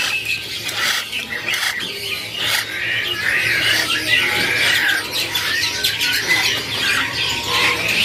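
Young hand-fed parrots, lovebirds and cockatiel chicks, squawking and chattering together in a dense, continuous harsh chorus.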